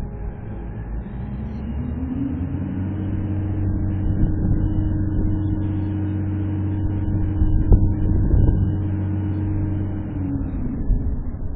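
Forklift engine rising in speed about two seconds in, holding a steady higher pitch as the mast lifts a steel coil, then dropping back near the end. A couple of sharp knocks come a little after the middle.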